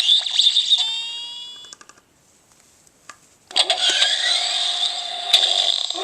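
Smasha-Ballz toy ball playing its electronic funny sound effects through a small speaker: one effect fades out over about two seconds, a click follows after a short pause, then a second, noisier effect with sliding pitches starts about three and a half seconds in.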